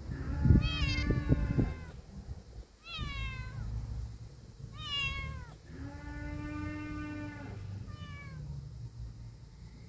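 A kitten meowing: four short, high meows that fall in pitch, about a second in, at three, at five and at eight seconds, and between them one longer, lower, steady call lasting nearly two seconds. Low wind rumble on the microphone under the first couple of seconds.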